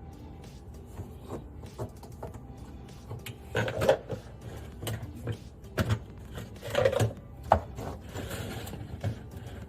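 Irregular clicks, knocks and clatter of parts and tools being handled during a garbage disposal installation, with two busier bursts of clatter about four and seven seconds in.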